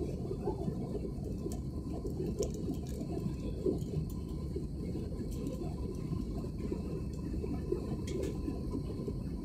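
Steady low rumble of a jet airliner's engines and rushing air heard inside the passenger cabin during the climb after take-off, with a faint steady hum above it.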